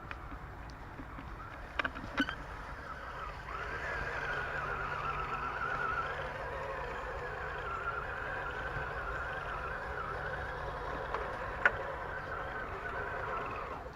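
Radio-controlled scale crawler's electric motor and gearbox whining under throttle, the pitch wavering a little as the throttle changes. A couple of sharp clicks come about two seconds in and one more near the end.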